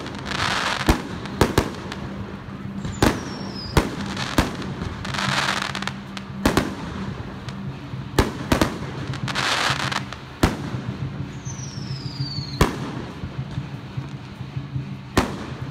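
Aerial fireworks going off: sharp bangs at uneven intervals, three spells of crackling as shells burst, and two falling whistles, the first about three seconds in and the second near the end.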